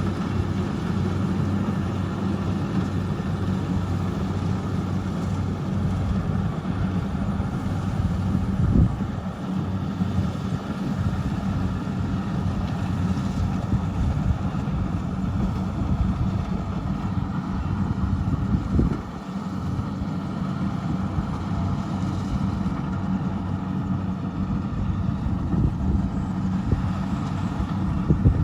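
Kubota rice combine harvester running steadily, a continuous engine and machinery drone with a low hum, broken by a brief louder knock about a third of the way in and again about two-thirds of the way in.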